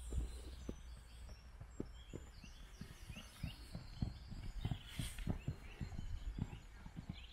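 A horse's hooves thudding softly and irregularly on sand footing, mixed with a person's running footsteps, with faint bird chirps in the background.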